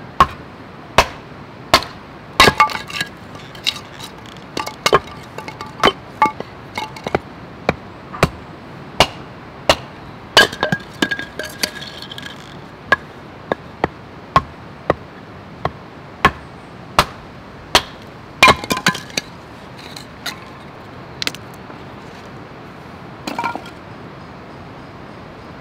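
A run of sharp, hard strikes, roughly one a second, some leaving a brief metallic ring, thinning out near the end.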